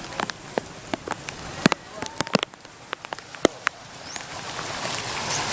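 Raindrops tapping sharply and irregularly on a nearby surface over a steady hiss of heavy rain and flowing floodwater; the hiss grows louder toward the end.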